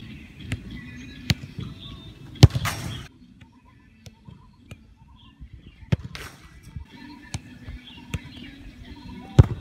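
A football being struck with the foot in half-volley shots: a few lighter touches and bounces, then a sharp kick about two and a half seconds in, and another sharp kick near the end.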